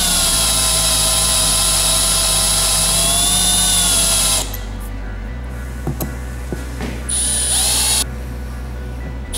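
Cordless drill running under load as the bit cuts a pilot hole into a stainless-steel sheet. The motor whine dips slightly in pitch and then stops about four and a half seconds in. A few light clicks follow, then a second short run of about a second, and the drill starts again at the very end.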